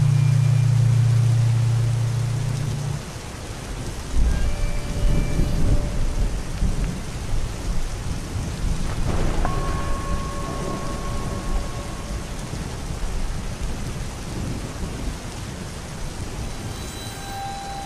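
Thunder rumbling under steady rain. The rumble breaks in suddenly about four seconds in and rolls on, after a low steady hum cuts off about three seconds in.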